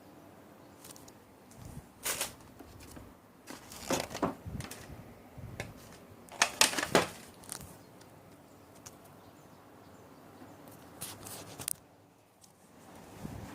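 Irregular handling noises: a few short rustles and clicks, the loudest cluster about six and a half to seven seconds in.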